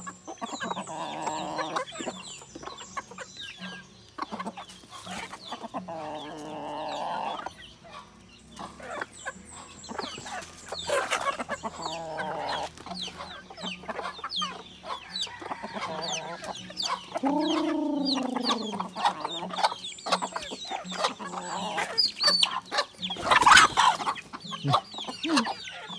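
Native chickens clucking and calling as they peck at feed, with many short ticks from the pecking. About two-thirds of the way in there is one long call that falls in pitch, and near the end a loud rush of noise as a hen flaps her wings.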